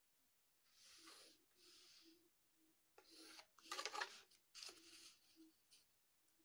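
Faint scratching and rubbing of pencil, ruler and hand on drawing paper: about five short strokes as a pencil is drawn along a ruler to rule a border, the loudest about four seconds in, when a hand smooths the page.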